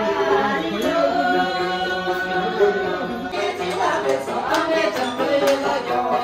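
Music with a voice singing a sustained, gliding melody.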